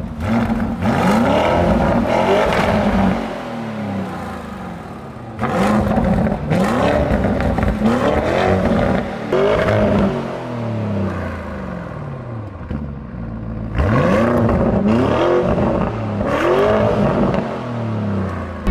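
Lamborghini Urus 4.0-litre twin-turbo V8, standing still and revved through its Akrapovič exhaust: about eight quick blips, each rising sharply and falling back, with two longer stretches of idle in between.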